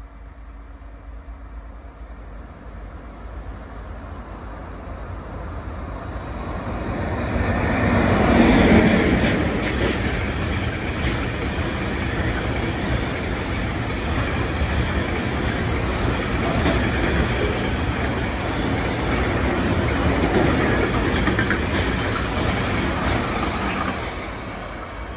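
Long freight train of tank wagons passing close by on the rails. The rumble builds to its loudest about eight seconds in, then the wagons roll past steadily with repeated wheel clicks, dropping away near the end as the last wagon passes.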